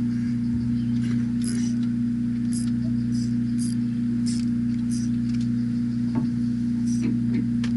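A fishing boat's engine or generator humming steadily at one pitch, with scattered light clicks and clinks over it.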